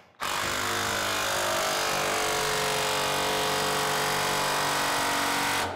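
Cordless DeWalt impact wrench hammering steadily for about five seconds as it drives a gear puller's forcing screw against a seized rotary-cutter wheel spindle that will not budge. It starts and stops abruptly.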